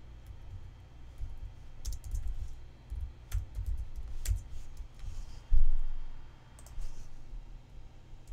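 Computer keyboard keys pressed one at a time in scattered, irregular clicks, with a louder low thump about five and a half seconds in.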